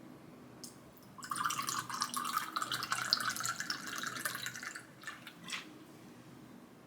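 Kitchen tap running for about four seconds, starting a second in, with a few light clicks of kitchenware around it.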